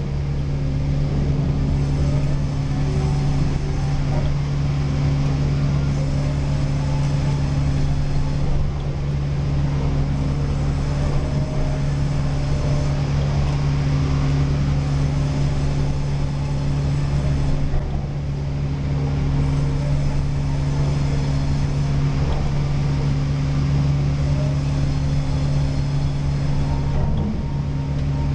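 Sawmill machinery running steadily with a deep, even hum, dipping slightly a couple of times.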